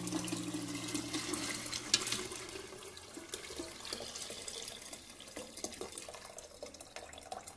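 Chicken stock poured from a pan through a stainless-steel mesh strainer into a pot, the liquid splashing. The stream thins and grows quieter as the pan empties.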